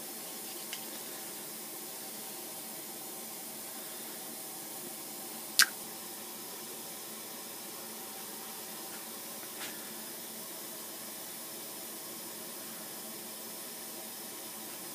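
Steady hiss of workshop background noise, with one sharp click about five and a half seconds in and a couple of faint ticks.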